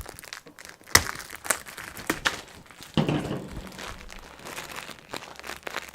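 Packaging crinkling and rustling as the fridge's steel handles are unwrapped, with a few sharp knocks, the loudest about a second in.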